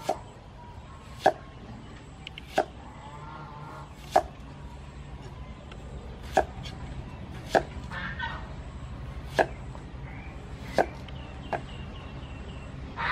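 Kitchen knife chopping an onion on a thick wooden cutting board: about nine single sharp knocks, spaced a second or more apart.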